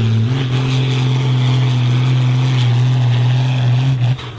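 New Holland 8970 tractor's diesel engine running flat out under heavy load as it pulls a sled, holding a steady high pitch with a slight rise just after the start. Near the end the engine comes off load and the sound drops sharply.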